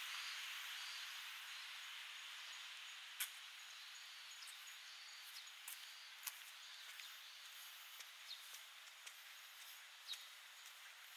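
Quiet street ambience. A broad hiss fades away over the first few seconds, then faint clicks and ticks come at irregular intervals.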